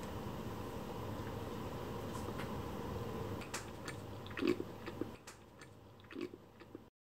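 A fork cutting a piece of soft rolled baumkuchen on a wooden board, then biting and chewing it: a few small clicks and soft mouth sounds over a steady hiss, cutting off abruptly near the end.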